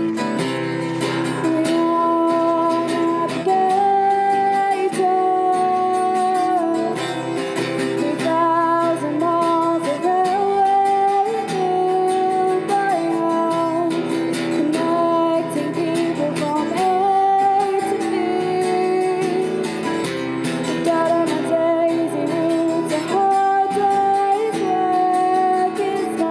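A woman singing a song to a strummed acoustic guitar, holding long notes.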